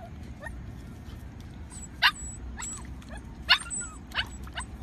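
Dog giving a few short, sharp barks, spaced out, the loudest about two seconds and three and a half seconds in.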